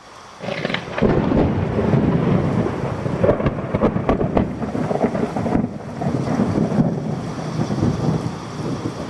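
Thunder with rain: a rumbling peal that rises in about a second to a loud, crackling rumble, then rolls on and eases a little, over a steady hiss of rain.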